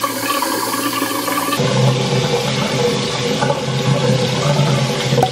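Tap water running from a bathroom faucet into a sink, a steady rush that changes character about a second and a half in.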